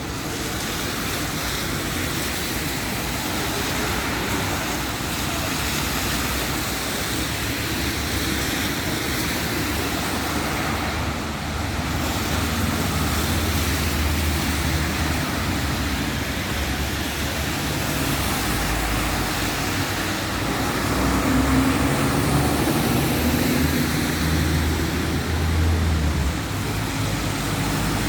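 Road traffic noise: a steady hiss of passing cars with a low rumble that swells and fades.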